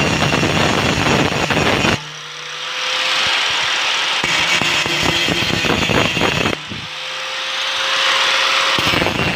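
Angle grinder grinding down a weld bead. It is lifted off the metal about two seconds in and again near seven seconds, spinning free with a steady whine, then pressed back into the weld as the grinding noise builds again.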